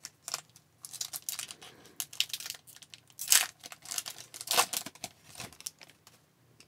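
Foil wrapper of an Upper Deck hockey card pack crinkling and being torn open by hand, in a run of irregular rustles, the loudest a little past three seconds and about four and a half seconds in.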